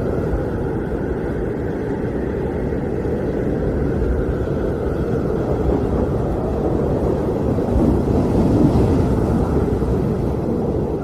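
Blizzard wind blowing steadily, a low rushing roar that swells a little near the end.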